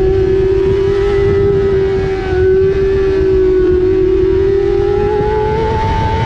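Honda CBR600's inline-four engine running steadily high in the revs under part throttle through a long corner, its pitch dipping slightly midway and climbing a little near the end. Heavy wind rush on the onboard microphone underneath.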